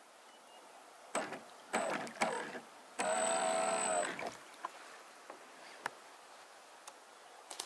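RC speedboat motor being throttled: a few short blips about a second in, then a one-second burst of motor whine with a high steady tone as the boat pulls away from the shore.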